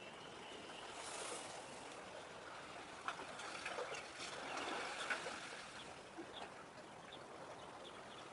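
Faint outdoor ambience of lapping water, with a few scattered short chirps; the water noise swells a little louder from about three seconds in and eases off again after five.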